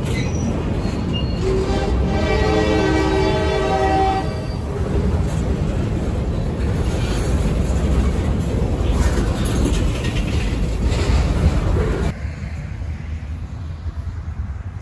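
Freight train cars rolling past with steady wheel-on-rail rumble and clatter, while the lead GP38-2 locomotive's multi-note horn sounds a chord that stops about four seconds in. The rolling noise drops off sharply about twelve seconds in as the end of the train goes by.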